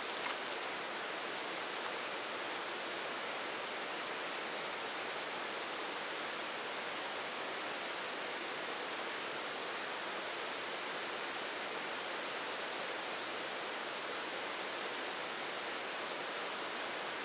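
Steady, even rushing of a mountain creek.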